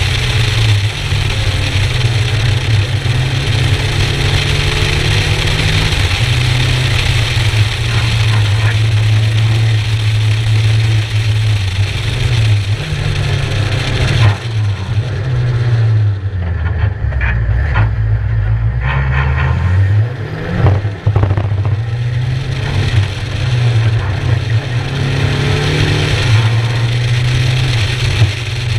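Skoda Fabia RS rally car's tuned 1.9 TDI four-cylinder diesel engine running hard at speed, its pitch stepping at gear changes. A little past the middle the engine note falls to low revs for a few seconds, then climbs again as the car accelerates.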